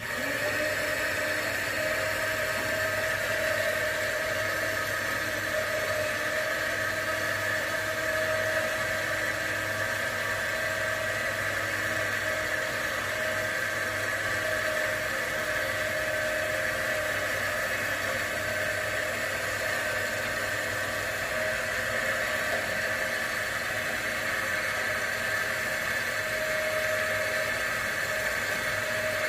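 Ladder crane's hoist motor running steadily as it winches an air-conditioning condenser up the ladder: an even whir with a constant hum.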